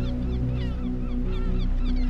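Ambient music of sustained low, held tones, with many short bird chirps scattered over it, several a second.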